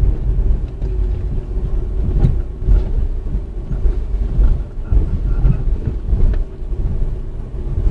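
Vortex Tingo SUV heard from inside the cabin, slowing under braking: a steady low rumble of engine and road noise.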